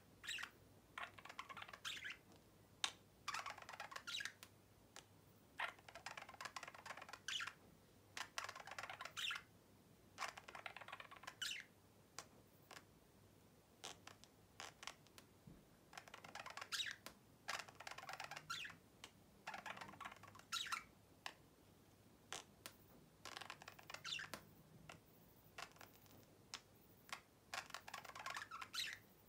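Budgerigar quietly chattering and warbling to its reflection in a mirror: short broken phrases every second or two, with soft clicks between them.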